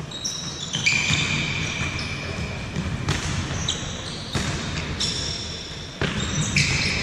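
Futsal balls being kicked and bouncing on a wooden sports-hall floor, a thud every second or so, with high squeaks of players' shoes on the boards.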